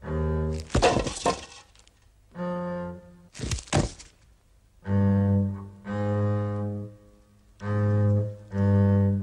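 Cartoon score of low bowed strings playing six short, separate notes, with a pause between each. Two short bursts of clattering knocks, about a second in and again around three and a half seconds in, break into the music.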